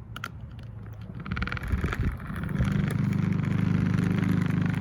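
Mainstays box fan running with its blades damaged and off balance, rattling rapidly as it shakes. The rattle grows much louder about two and a half seconds in.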